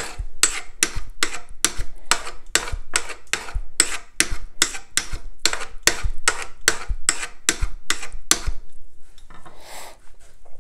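Steel burnisher rubbed in quick back-and-forth strokes along the edge of a steel card scraper, about three strokes a second, stopping about eight and a half seconds in. The angled strokes roll the edge over into the scraper's cutting hook.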